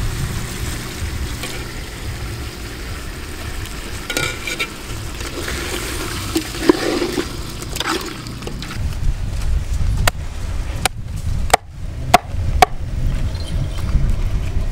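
Liquid poured into a metal cooking pot and stirred with a metal ladle, the ladle scraping against the pot, followed in the second half by several sharp knocks about half a second apart.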